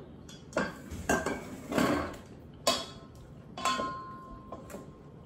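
Wooden salad servers knocking and scraping against a stainless steel mixing bowl while julienned vegetables are tossed, in an irregular run of clatters. One knock about two-thirds of the way through leaves the metal bowl ringing briefly.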